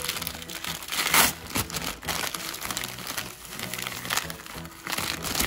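Plastic mailer and bag crinkling and rustling as hands pull them open, loudest about a second in, over background music.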